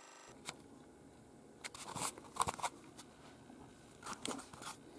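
Short bursts of crinkling and clicking as things are handled on a workbench, in two clusters, the first about two seconds in and the second near the end.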